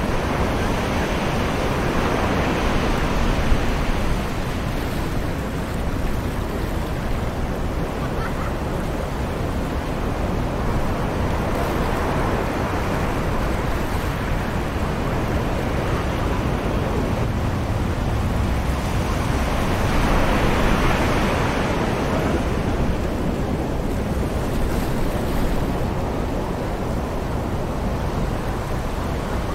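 Distant ocean waves washing onto a beach, a continuous rushing surf that swells three times and is loudest about twenty seconds in.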